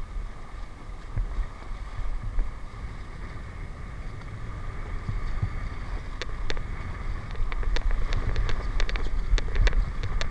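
Wind rumbling on the microphone over a steady hum. From about six seconds in come a series of sharp clicks.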